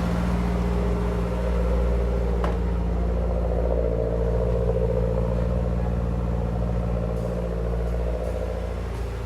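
Mazdaspeed 6's turbocharged 2.3-litre four-cylinder idling steadily through a 3-inch turbo-back exhaust, just after a replacement turbo was fitted, with one short click about two and a half seconds in.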